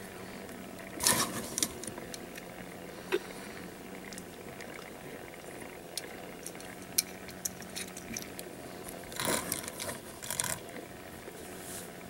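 Faint clicks and light rattles of small hard objects being handled, with short bursts of handling noise about a second in and again around nine to ten seconds, over a quiet steady hum.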